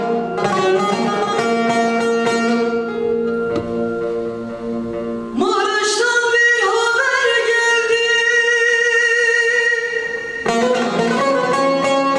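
Bağlamas plucking over steady held tones in a Turkish folk lament (ağıt). About five seconds in, a solo female voice enters, sliding upward into a long, wavering held line. The plucked strings come back in near the end.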